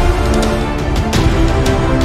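Background music: sustained notes over a heavy bass line, with drum hits.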